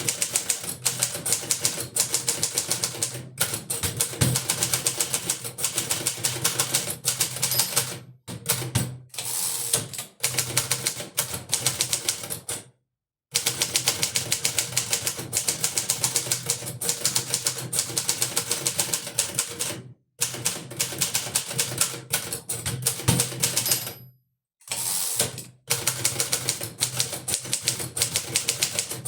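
1952 Hermes 2000 portable manual typewriter being typed on: fast, steady strikes of the typebars, broken by a few short pauses.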